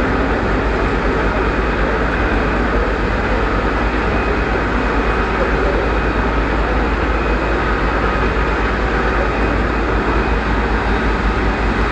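Tea-processing machines running: electric motors driving belt and roller machines that carry the tea leaves. They make a loud, steady mechanical din with a low hum underneath.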